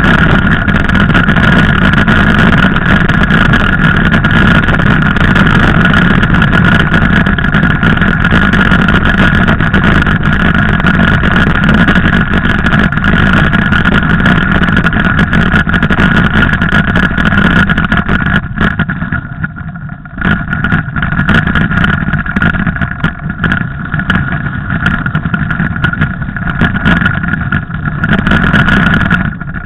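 Mountain bike riding over a snowy trail, heard on its mounted camera's microphone: a loud, steady rush of wind and rattling with a steady high whine over it. The noise eases for a couple of seconds about two-thirds of the way in.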